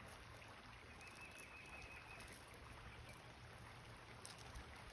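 Near silence: faint outdoor background hiss and low rumble, with a faint high wavering tone for about a second near the start and a couple of faint ticks near the end.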